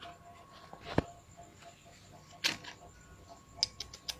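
A few sharp clicks and knocks: one loud one about a second in, another halfway through, and a quick run of clicks near the end.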